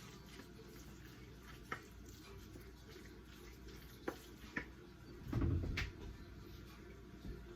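A utensil mixing tuna salad and chopped boiled egg in a bowl: a few scattered clicks against the bowl, with a louder low bump about five and a half seconds in.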